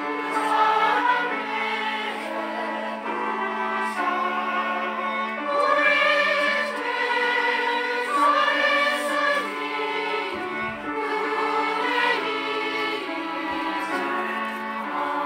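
Choir singing a Christian praise hymn, with long held notes throughout.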